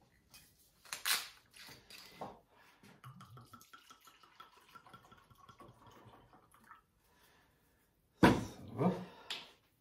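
Dry red wine poured from a bottle into a metal roasting pan of pork neck steaks and onions, a faint steady trickle for a few seconds. Near the end there is a loud knock as the bottle is set down.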